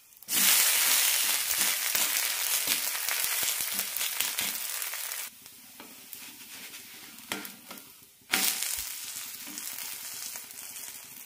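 Tapioca ada dosa sizzling in oil on a hot tawa, just flipped onto its uncooked side. The sizzle cuts off suddenly about five seconds in, comes back loud about three seconds later, and fades gradually toward the end.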